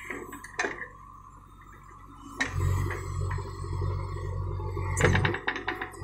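JCB 3DX backhoe loader's 76 hp diesel engine running with a steady whine while the backhoe digs; about two and a half seconds in the engine note deepens and loads up under the digging, then drops back near the end. Sharp metallic clanks from the bucket and arm, with a quick run of them near the end.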